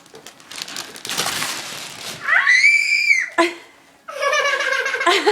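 Wrapping paper being torn off a present, then a child's single high-pitched excited squeal, followed by several children shrieking and squealing with excitement.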